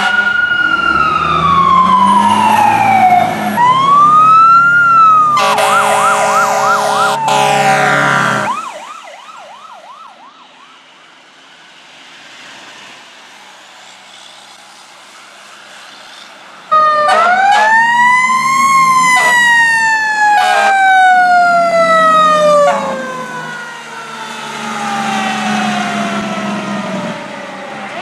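Fire truck sirens. An electronic wail falls and rises, then switches to a fast yelp with an air horn blast about six seconds in. After a quieter stretch with a distant yelping siren, a loud wail comes in suddenly about 17 seconds in, rising and then falling slowly.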